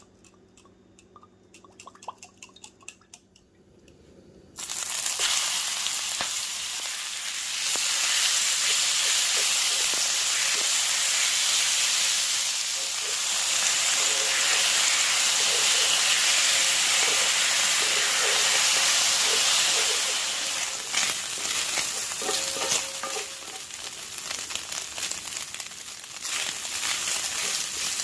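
A few faint clicks, then about four and a half seconds in a loud sizzling starts suddenly as food goes into hot oil in a pan. It keeps frying steadily, with the clicks and scrapes of a utensil stirring it, more of them near the end.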